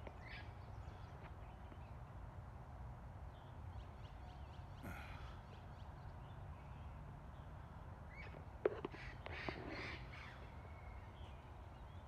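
Wild parrots giving harsh, scattered squawking calls, with a cluster of calls about nine to ten seconds in, over a faint low steady rumble.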